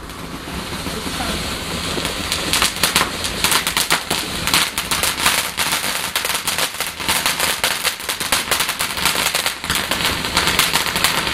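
A garden firework lit and going off: a rising fizz, then from about two seconds in a dense, rapid crackle of small pops that keeps on.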